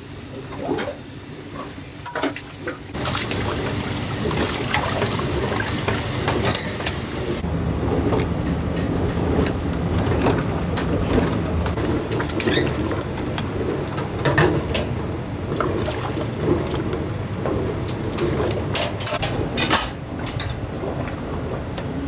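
Busy soba-shop kitchen: a steady rushing hiss that starts about three seconds in and is brightest for the next few seconds, overlaid with scattered clinks and knocks of utensils and dishes.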